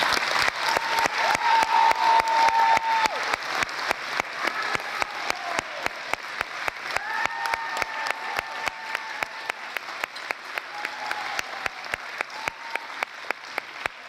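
Audience applause right after the music ends, settling into steady rhythmic clapping in unison at about three to four claps a second and getting slowly quieter.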